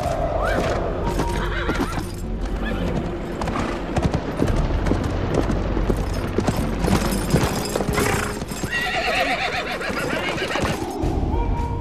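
Horses: hoofbeats clattering as a horse gallops in, with neighing, one whinny right at the start and another about nine seconds in.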